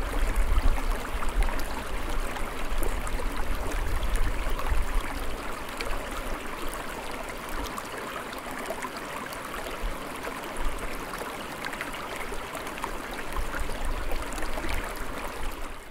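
Small woodland stream flowing: a steady, even rush of water, with a low rumble under it that fades after the first few seconds.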